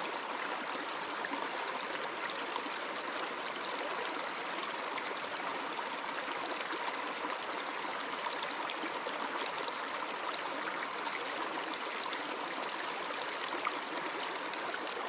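Flowing water, a steady, even rush that never breaks.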